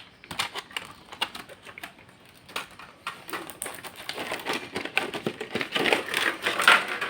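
Quick light clicks and rattles of small plastic and metal computer parts being handled and fitted by hand, sparse at first and coming thick and fast over the last few seconds.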